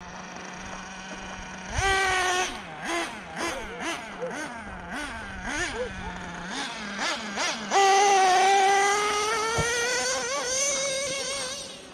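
HoBao Hyper VS2 nitro RC car's glow engine idling, then revved in a string of quick throttle blips rising and falling in pitch, then held at high revs from about 8 s in, its pitch slowly climbing before fading near the end. The owner feels the low-speed needle is set a bit rich.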